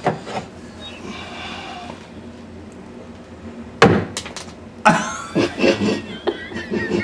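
Knocks and bumps against wood: two loud knocks, a little under four and about five seconds in, then a quick run of lighter bumps and rustling.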